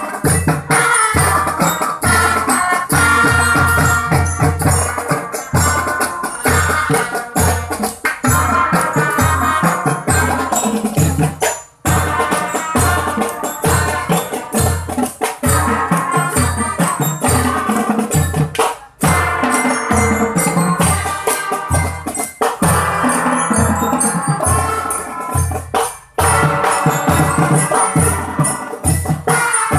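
Marching band drumline playing: bass drums keep a steady beat under snare and tenor drums and cymbals, with a melody carried above them. The music breaks off briefly three times at the ends of phrases.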